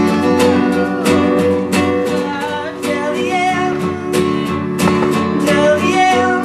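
Acoustic guitar strumming steadily in a song, with a light vocal line over it.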